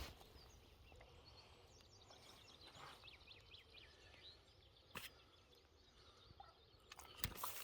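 Quiet outdoor ambience with faint, scattered short bird calls, a sharp click about five seconds in and two more light knocks near the end.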